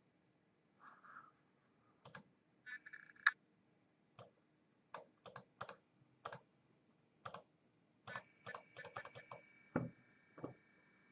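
Scattered light clicks, about a dozen at irregular intervals, with a faint steady high whine joining about eight seconds in.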